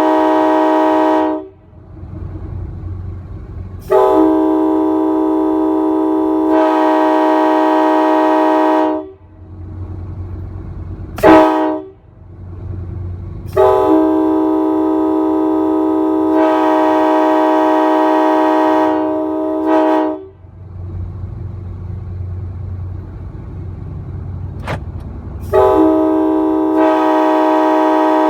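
Nathan Airchime K5LA five-chime air horn (early-2000s round-tag version) sounding a steady multi-note chord in separate blasts. A blast ends about a second and a half in, a long blast follows, then one short blast, then another long blast, and a new blast starts near the end. A low rumble fills the gaps between blasts.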